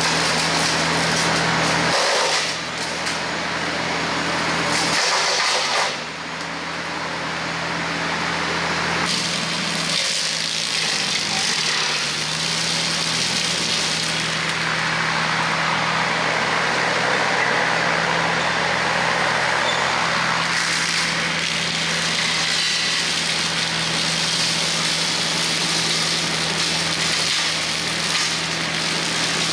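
Compact tractor's diesel engine running steadily under load while the front-mounted Hardee Brush Tiger hydraulic rotary cutter spins and chops through brush. The level drops briefly twice in the first six seconds.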